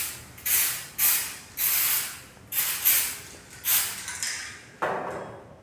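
Aerosol can of white contrast paint spraying in a series of short hissing bursts, about seven. It is laying the white background coat on a weld ahead of magnetic particle testing.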